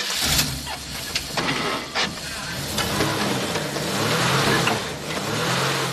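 An old car's engine running and revving up and down as it drives off, with a few sharp clicks and knocks in the first couple of seconds.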